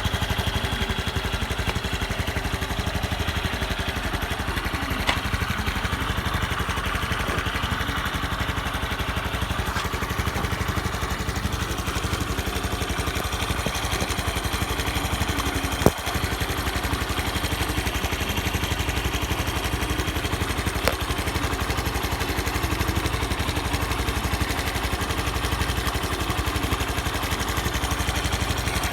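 Honda Super Cub 110 PRO's air-cooled single-cylinder four-stroke engine idling steadily, with no abnormal noise according to the seller. A single sharp click comes about halfway through.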